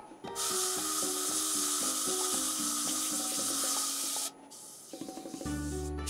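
Background music with a melody of short held notes, over the steady hiss of sandpaper held against a spinning wooden bowl on a lathe. The hiss breaks off for under a second near the four-second mark, then resumes.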